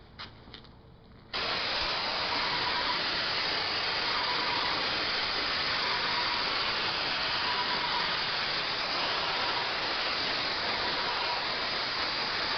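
Airless paint sprayer (Titan 440i) spraying through a RAC X 310 tip at near full pressure. The trigger opens about a second in, and a steady hiss of atomizing paint then holds unbroken as one continuous sweep, with the trigger never released, which avoids start-and-stop marks and spitting.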